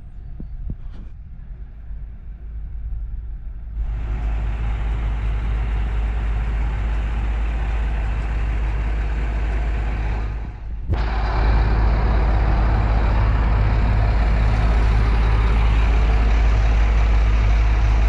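Crawler bulldozer's diesel engine running close by with a steady low rumble. It starts quieter with a few knocks, gets louder about four seconds in, and louder again after about eleven seconds.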